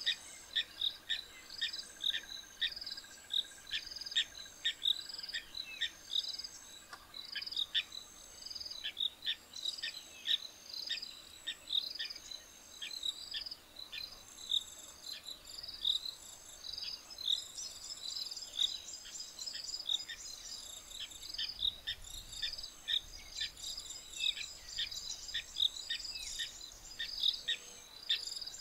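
Bush ambience: a dense, continuous chorus of insects chirping rapidly and high-pitched, with bird calls mixed in.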